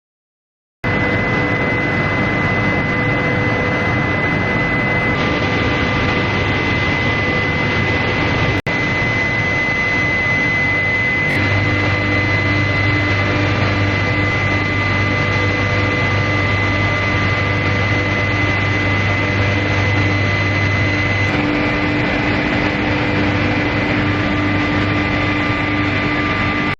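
Induction quenching and tempering line for metal bars running: steady loud machine noise with a constant high whine and a low hum. It cuts out for an instant about eight seconds in.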